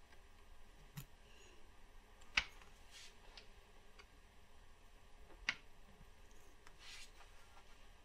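Faint hand-work sounds of acrylic nail sculpting: an acrylic brush and long acrylic nails tapping and brushing against each other and the acrylic jar. Two short, sharp clicks stand out, about two and a half and five and a half seconds in, among fainter ticks and a couple of soft scrapes.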